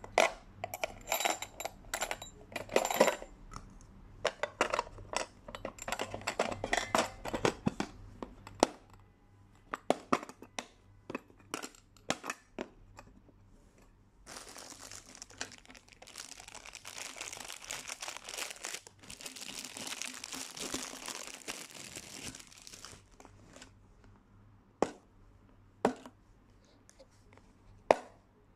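Clicks and clatter of a stainless-steel lunchbox, its plastic lid and utensils being handled for about the first nine seconds. This is followed by scattered clicks, then a crinkling rustle lasting about eight seconds, and a few single sharp clicks near the end.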